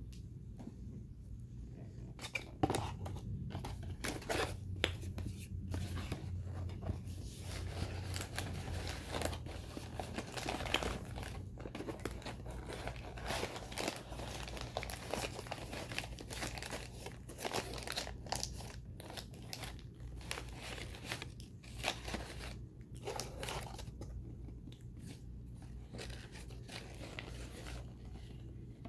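Cardboard corn starch box being torn and pried open by hand: a long run of irregular tearing and crinkling noises that thins out near the end.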